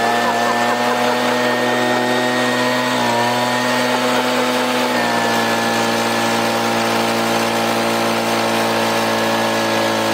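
Two-stroke engine of a Stihl BG85 handheld leaf blower running steadily just after starting, its pitch settling slightly lower about three seconds in and again about five seconds in.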